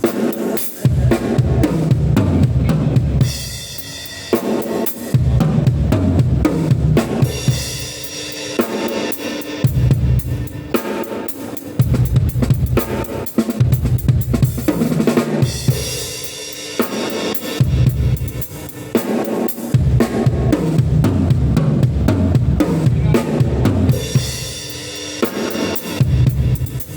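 A drum kit played in a steady groove, with bass drum, snare and cymbals, the pattern repeating in phrases of several seconds.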